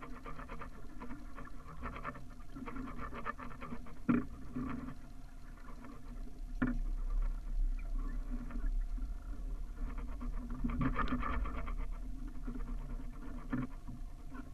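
Water lapping and splashing against the hull of a small sailing dinghy under way, an irregular patter. There are two sharp knocks, near the start and about halfway, and a low rumble sets in from about halfway.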